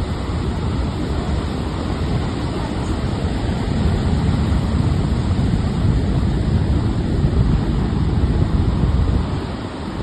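Ocean surf crashing against a cliff, with wind buffeting the microphone in a low rumble; it swells louder about four seconds in and eases off near the end.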